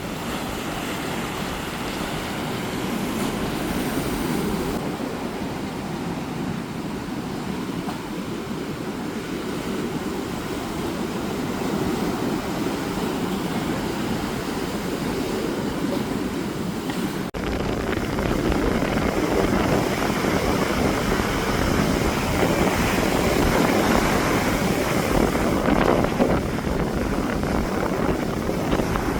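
Ocean surf breaking and washing up the beach in a steady roar, a little louder after a break about 17 seconds in.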